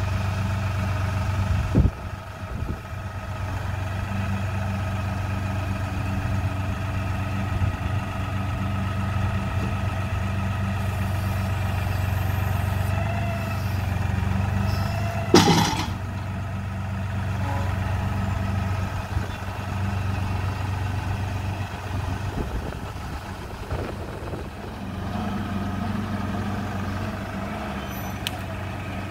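LS compact tractor's diesel engine running steadily as the tractor drives with a load on its loader forks. There is one short, sharp, loud noise about fifteen seconds in.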